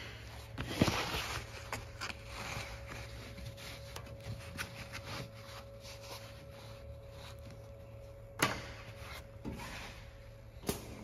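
Heavy awning fabric rustling and sliding over the sewing machine's metal table as it is smoothed flat by hand, with a few sharp clicks, one about a second in and two near the end, over a faint steady hum.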